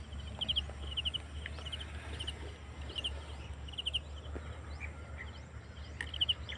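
Repeated short chirps from a small animal, each a quick burst of a few pulses, about two a second, over a steady low rumble.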